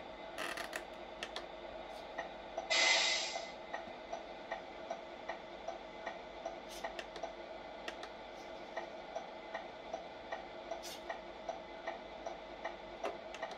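Turn-signal ticking from the sound unit of a Tamiya 1/14 Mercedes-Benz truck's MFC-03 multi-function control: an even, clock-like tick about two and a half times a second while the indicator lamps blink. About three seconds in, a short loud hiss under a second long, and a few sharp clicks.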